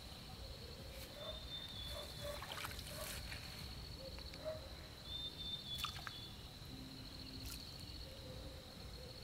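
Water trickling and sloshing, against a steady high-pitched insect trill, with a few sharp clicks.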